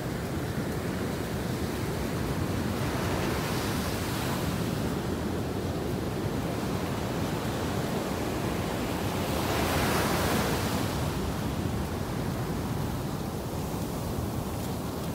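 Ocean surf breaking and washing up a sandy beach: a steady rush of water, with one louder wave wash about ten seconds in.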